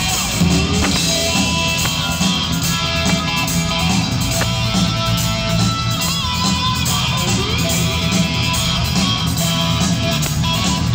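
Live rock band playing in a large arena, guitar to the fore over bass and drums.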